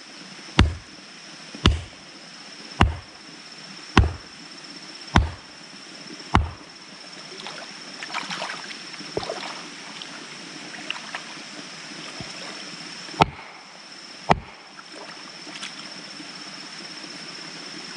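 Heavy wooden mallet pounding a wooden stake into a muddy pond bed: six knocks about a second apart, then softer splashing from wading through shallow water, then two more knocks near the end.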